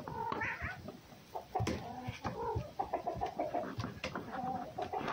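A cat and a red fox play-fighting at close quarters: wavering, whining yowls in several runs, most of them between about one and a half and three seconds in and again near the end, with short scuffling clicks in between.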